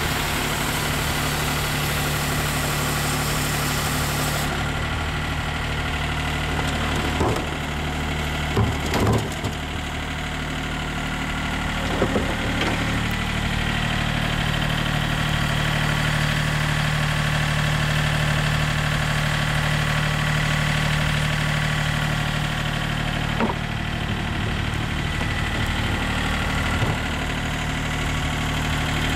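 Steady engine idle from the truck-mounted automated trash-can cleaning rig. A high hiss, the wash spray inside the cleaning chamber, cuts off about four seconds in, and a few short metallic clunks follow as the bin lift moves.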